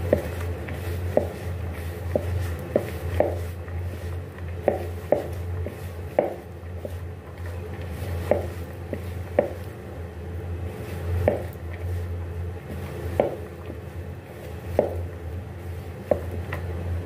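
Raw potato sticks coated in flour and spices being tossed and mixed by hand in a bowl, with irregular knocks about every second or two as the hand and potatoes strike the bowl. A steady low hum runs underneath.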